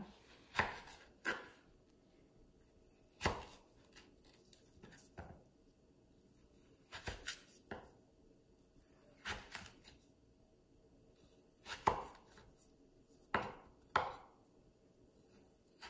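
Large kitchen knife cutting a peeled raw potato into wedges and knocking on a wooden cutting board: about ten separate cuts with pauses between them.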